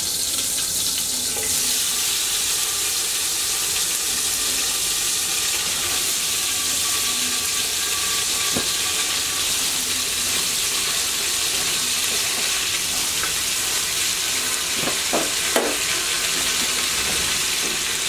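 Hot oil sizzling steadily in a cooking pot, with a few short utensil knocks, once about halfway and twice near the end.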